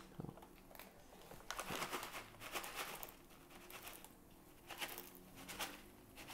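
Foil pouch of freeze-dried raspberries crinkling as it is shaken out, with light pattering of the dry berries landing on the hardened sugar crust in ceramic ramekins. The sound is faint and comes in several short spells of crackling with pauses between.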